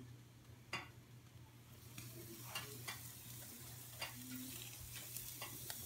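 Meat sizzling inside the firebox of a cast-iron wood stove, the hiss growing louder as the stove door is worked open. Several sharp metallic clicks come from the door handle and latch.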